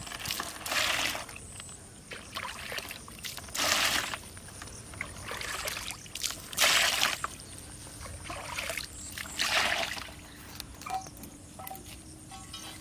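Water poured from a small steel bowl splashing into the shallow edge of a pond, four splashes about three seconds apart.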